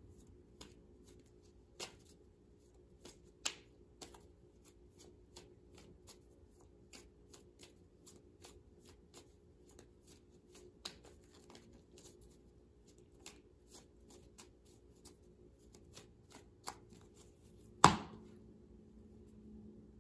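A deck of playing cards being shuffled by hand before a card is drawn: a run of light, irregular card clicks and riffles, with one sharp, much louder snap of the cards near the end.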